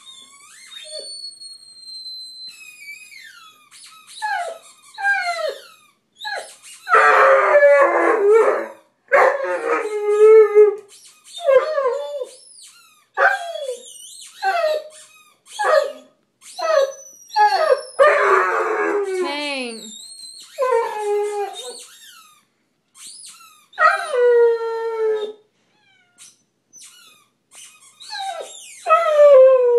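Basset hound howling and whining, a long run of short falling yelps and whines broken by several drawn-out howls.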